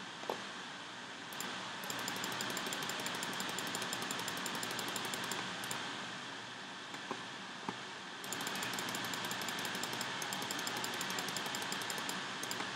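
Steady background hiss with two stretches of fast, even, faint ticking, each about four seconds long, and a few single clicks.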